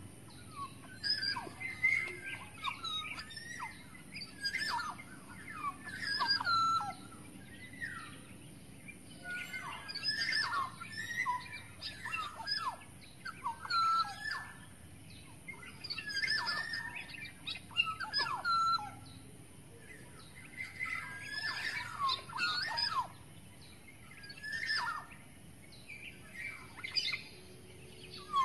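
Black-naped oriole (kepodang) calling: short phrases of whistled, sliding notes repeated every second or two, with a faint steady high hiss underneath.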